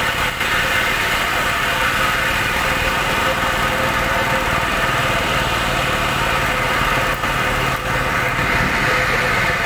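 Diesel engine of a JCB backhoe loader running steadily.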